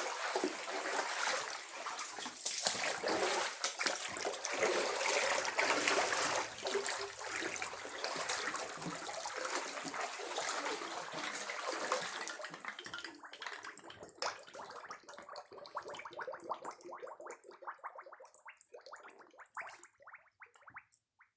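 Floodwater in a basement running and splashing, steady for about twelve seconds, then fading away to almost nothing near the end.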